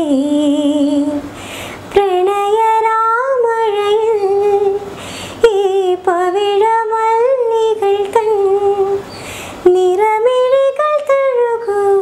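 A woman singing a Malayalam song unaccompanied. She sings one word of the lyric, then carries the melody through long, wavering held phrases, mostly hummed, with short breaks between them.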